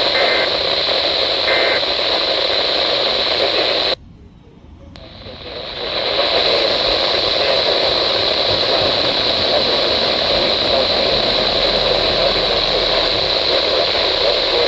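Radio receiver static: a steady hiss from a weak or empty channel. It drops away suddenly about four seconds in, then swells back to full over the next two seconds.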